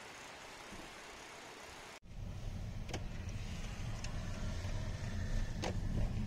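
A faint, steady hiss for about two seconds, then an abrupt cut to the inside of a moving car: low road and engine rumble from the cabin while driving, with a few light clicks.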